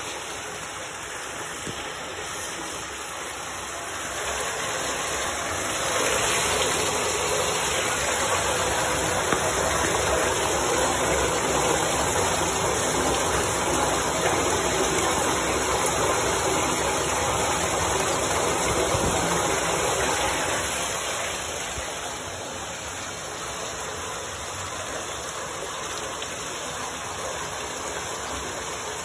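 Treated effluent from an SOS BioReactor secondary-treatment unit gushing out of a grey plastic pipe and splashing into water in the sampling basin. A steady rush that grows louder about six seconds in and eases back around twenty-one seconds.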